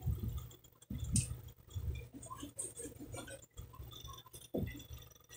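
Knife and hands working a raw whole chicken on a plastic cutting board, pulling the back away from the breast after the backbone is broken: soft, irregular knocks, clicks and scrapes with a few dull thumps.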